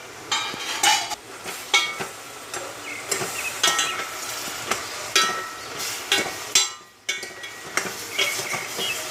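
Metal spoon scraping and clinking against a stainless-steel pot while stirring breadfruit pieces in masala, with a sizzle from the pot. The scrapes come about two a second, with a brief pause about seven seconds in.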